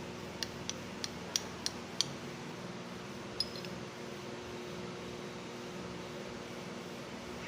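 Light metallic clinks of metal parts being handled: about six small clicks in the first two seconds, then one sharper, ringing clink about three and a half seconds in, over a steady low hum.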